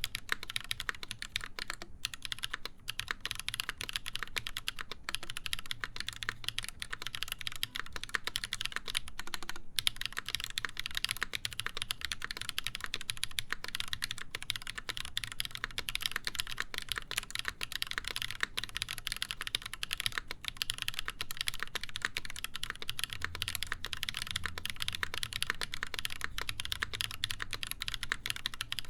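Continuous typing on an Exclusive E8.5 custom mechanical keyboard with lubed Holy Panda tactile switches, a full brass plate and GMK keycaps: a steady, dense stream of key clicks.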